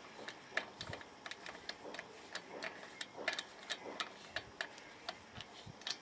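Light, irregular metallic clicks, several a second, from an M14 locking wheel bolt being turned in by hand on its threads in an alloy wheel hub.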